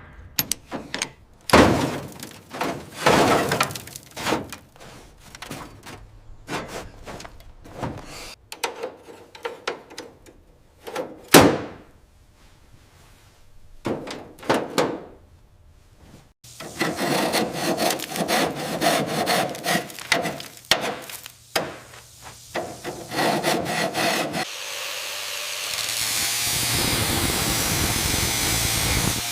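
Workshop tool sounds: a run of separate knocks, thuds and scrapes, then a power tool running for several seconds, then a steady hissing spray from a little before the end.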